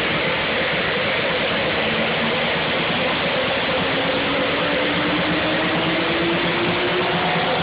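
Loud electronic dance music as picked up by an overloaded phone microphone: a dense, steady wash with a synth tone that slowly rises in pitch.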